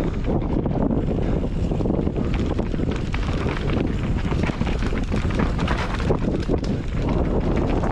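Wind rushing over the microphone of a camera on a mountain bike descending a trail, with constant rattling and knocking from the bike over rough ground.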